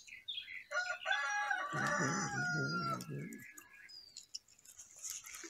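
A chicken gives one drawn-out call, starting about a second in and lasting some two and a half seconds, with a wavering pitch.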